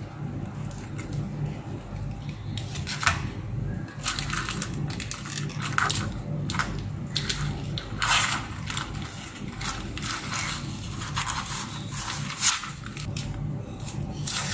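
Baking paper crinkling and rustling as it is peeled off a baked omelette, in short irregular crackly stretches starting about three seconds in, over a low steady hum.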